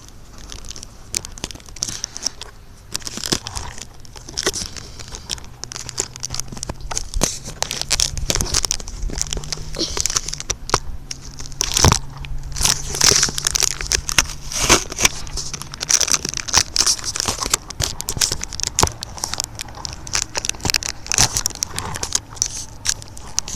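Radio-controlled truck driving over dirt, heard from a phone taped to it: a dense run of crackles, clicks and knocks from the tyres and the rattling body, over a faint low hum from the motor.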